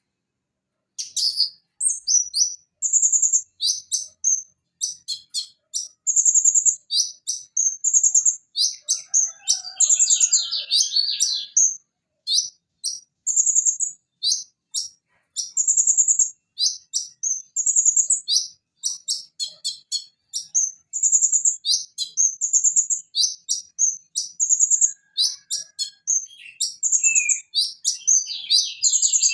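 Kolibri ninja sunbird (Leptocoma sperata) singing a fast, varied, high-pitched song of sharp chirps and rapid trills in quick phrases, starting about a second in.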